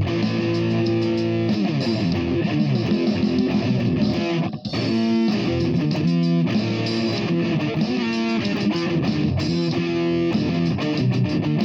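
Guitar playing a continuous run of notes, with a brief break about four and a half seconds in.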